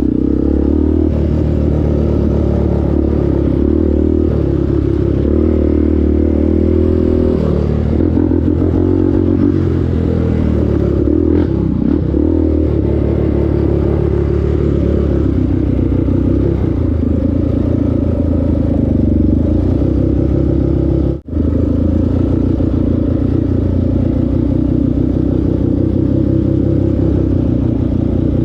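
ATV engine running steadily while riding, its pitch rising and falling with the throttle. The sound cuts out for a split second about 21 seconds in.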